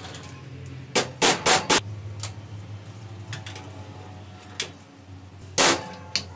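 Hammer striking a metal punch to drive a ball bearing onto the shaft of a circular saw motor's armature, sharp metallic knocks. Four quick strikes come about a second in, then single blows spaced out, the loudest near the end.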